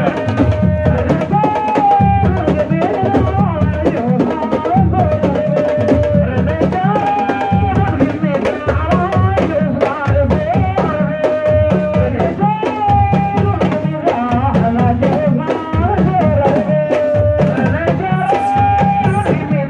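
Music with fast, dense drumming under a melody line of held, bending notes that repeats every few seconds.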